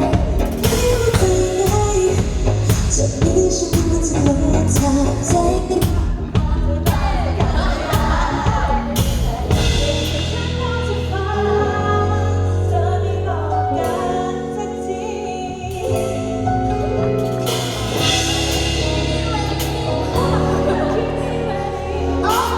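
Pop song performed live with singing over a band backing: the drums drive a steady beat, then drop out about ten seconds in, leaving held chords under the vocals.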